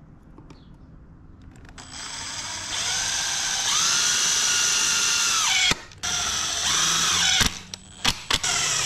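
Makita drill driving a screw through PVC pipe into a plastic board. Its motor whine comes in about two seconds in and runs for several seconds, rising and falling in speed. After a brief stop it runs again, then gives a few short blips near the end.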